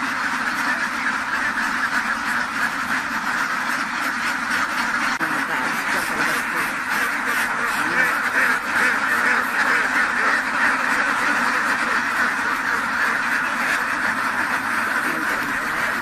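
A large flock of ducks quacking together in a dense, continuous chorus.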